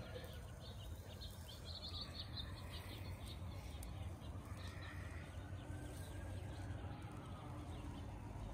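Outdoor ambience: small birds chirping in a quick flurry a second or two in, over a steady low rumble, with a faint siren wailing slowly up and down later on.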